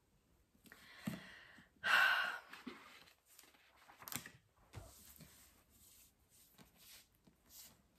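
A woman's breathy sigh, loudest about two seconds in, followed by soft rustling and a few light knocks.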